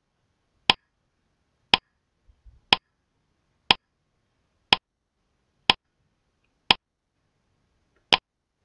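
Countdown timer sound effect: a sharp clock-like tick about once a second, eight ticks in all, with silence between them.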